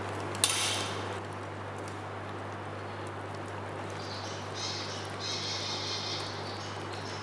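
Gloved hands rubbing oily marinade over a whole raw chicken in a glass bowl: a sharp knock about half a second in, then broken bursts of wet squelching and rubbing noise in the second half. A steady low hum runs underneath.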